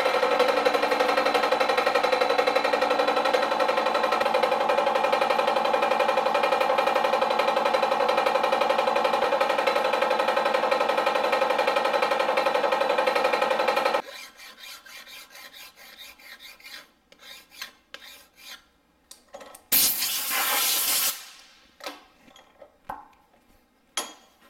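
Bridgeport vertical milling machine running a cut: a steady machine tone with many overtones that stops abruptly about 14 seconds in. Light clinks and knocks follow as the part is handled in the vise, with a loud rushing hiss lasting about a second near 20 seconds.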